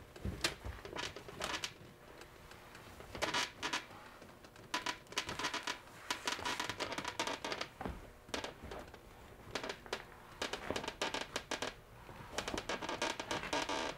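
Hands tucking a rubber flap into the cockpit coaming of a folding kayak: irregular rustling, scratching and small clicks of the rubber against the coaming and deck.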